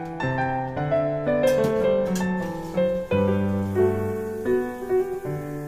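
Piano music, a melody of sustained notes over lower bass notes.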